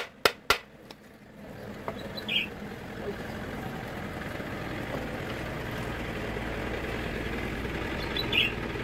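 Three quick hammer blows on a punch against the rivets of a Hino truck brake shoe in the first half-second. Then an engine idles steadily, with a short bird chirp twice.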